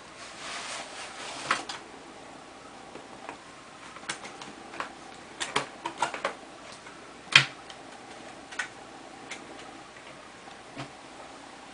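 Cardboard sleeve rustling and scraping as a boxed sushi tray is slid out of it, then a run of sharp clicks and crackles as the clear plastic lid is handled and pried off the tray, with one loud snap about seven seconds in.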